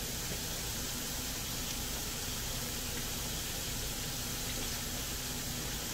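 Vegetables and shredded chicken sizzling gently in a frying pan: a steady, even hiss with no stirring.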